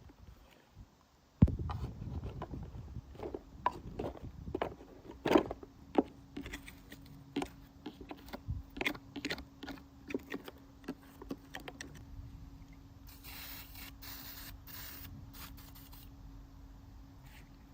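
Hand-tool work on a lawn mower: a sharp knock, then a run of irregular clicks, knocks and scrapes of metal parts being handled, followed by a few short hissing bursts of spray near the end.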